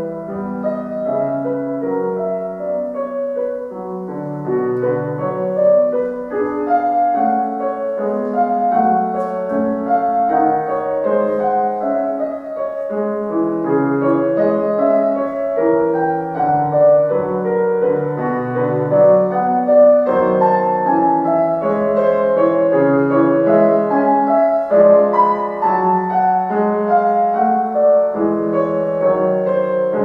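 Concert grand piano played solo: a classical piece in a continuous flow of many notes across the middle and low range, getting somewhat louder in the second half.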